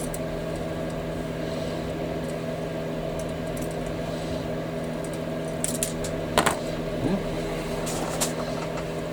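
A few sharp clicks and taps of hobby tools on plastic model-kit parts while the parts are trimmed, the loudest about six seconds in, over a steady electrical hum.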